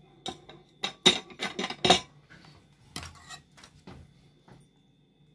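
Metal spatula clinking and scraping against a glass baking dish while a portion of moussaka is worked loose and lifted out. A string of sharp clinks, thickest in the first two seconds, then a few more scattered ones.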